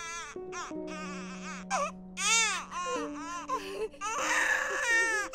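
Newborn baby crying in a string of short, high wails, the loudest and longest about four seconds in, over soft background music of slow, held chords.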